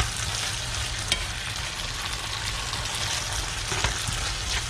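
Diced pork, shrimp and vegetables stir-frying in black bean sauce in a frying pan: a steady sizzle, with the scrape and tap of a spatula stirring the pan a few times.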